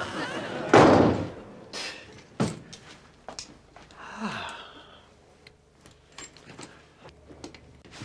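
A wooden room door slams shut, ringing on briefly. A lighter knock follows, then a short vocal noise from a man about four seconds in, and a few small clicks.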